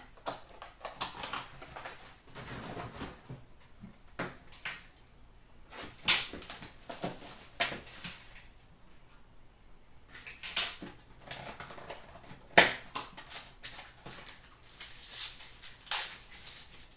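Cardboard trading-card boxes and cards being handled and opened by hand: irregular rustles, scrapes and taps, with louder knocks about six seconds in and again near thirteen seconds.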